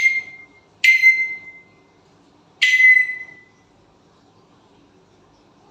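Pet parrot giving three sharp, whistle-like calls, each a harsh burst that settles into a steady high note and trails off, within the first three seconds or so.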